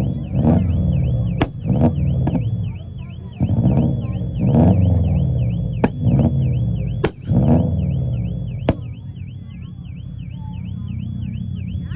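Subaru car engine revved hard about six times with sharp cracks between the revs, then settling to a steady idle about nine seconds in. A warbling, alarm-like tone repeats about three times a second throughout.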